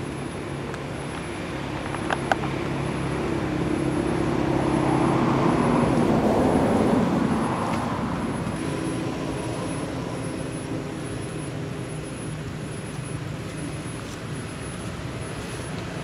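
Engine drone of something passing by, swelling to its loudest about six or seven seconds in and then fading away, with a couple of faint clicks about two seconds in.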